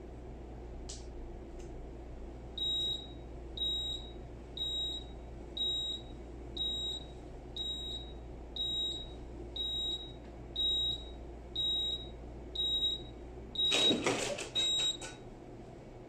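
Steam ironing press beeping: a short high beep about once a second, a dozen or so in a row. Near the end comes a loud burst of noise and clatter as the press lid is lifted, and the steady low hum underneath stops.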